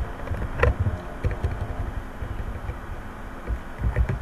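Computer keyboard being typed on in a few separate clicks, over a low, uneven rumble.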